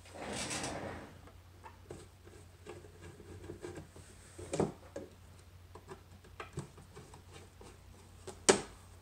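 Screwdriver and hands working a vintage tube radio's fibreboard back panel loose: a soft rustle at the start, then scattered light clicks and scrapes, a knock about halfway and a sharp tap near the end as the panel is handled.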